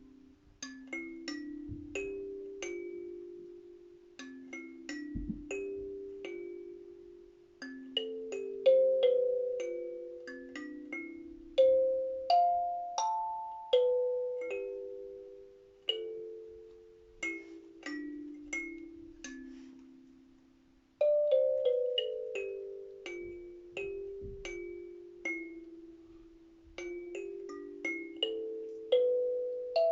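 Kalimba (thumb piano) played slowly and freely: single plucked metal tines ring out and fade, with a few quick runs of notes stepping up and down.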